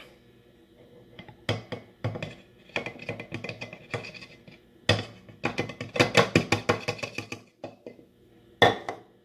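Measuring cup and spoon tapping and scraping against a mug as flour is added: a series of quick, irregular clicks, with a fast flurry near the middle and one sharp knock near the end.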